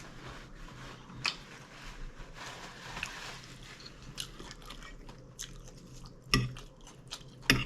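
A person chewing a mouthful of taco salad close to the microphone, with a few short sharp clicks, the loudest about six seconds in and near the end.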